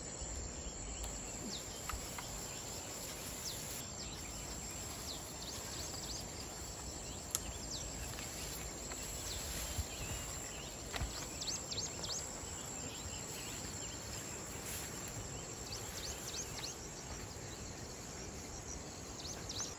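Outdoor field ambience: a steady hiss of background noise with scattered short high chirps from insects or birds, most of them bunched around the middle of the stretch.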